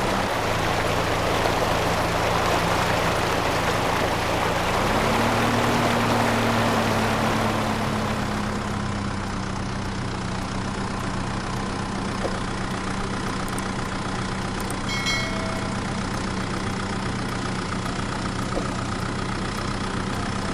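A small engine runs steadily, probably on the DIY mini tractor. Its speed rises about five seconds in, then settles slightly lower and holds there.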